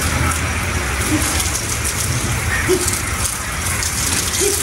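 Water spraying from a garden hose onto a wet concrete floor: a steady rushing hiss.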